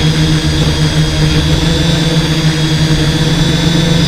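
Hexacopter with six electric motors spinning 11x5.5 propellers (HobbyKing 650X6 frame), heard from its own onboard camera: a loud, steady hum with a held whining tone as it hovers.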